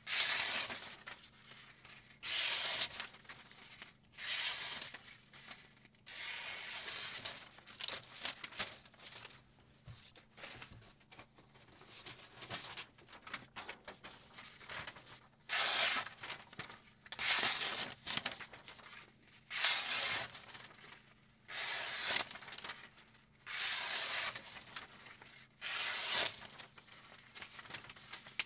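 Sheets of paper being sliced by the edge of a freshly sharpened kitchen knife, a series of short papery slicing strokes, one every second or two: a paper-cutting test of the edge's sharpness.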